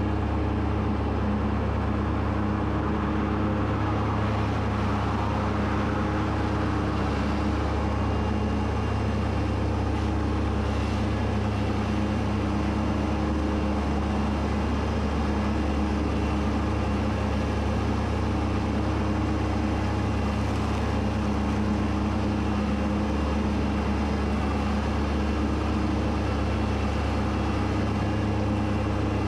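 Kubota B2601 compact tractor's diesel engine running at a steady speed while mowing, a constant hum with no changes.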